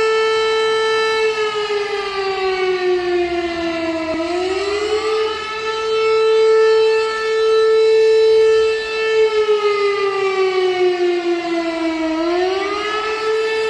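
Civil defense siren sounding: a steady high tone that sinks slowly over about three seconds, then swings quickly back up and holds. The cycle comes twice.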